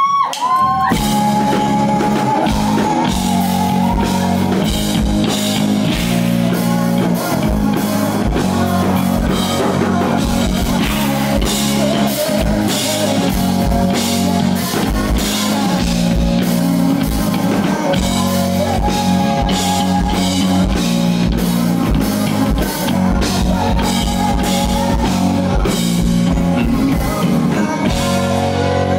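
Rock band playing live at full volume, with drum kit and cymbals, electric bass and guitar. The whole band comes in together at the start and then plays on steadily with a driving beat.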